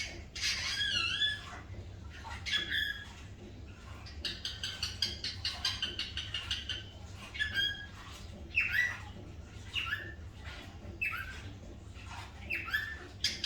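A small pet animal making a string of short, high-pitched squeaky calls, several sliding down in pitch. Between about four and seven seconds in there is a quick run of rapid chirps.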